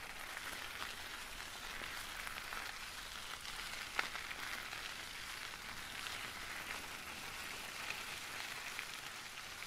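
Faint steady hiss with a few scattered soft clicks, one a little clearer about four seconds in.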